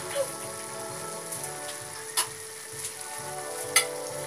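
Guisadong ampalaya (bitter gourd with pork and egg) simmering in a pan: a low steady sizzle, broken by three short sharp pops.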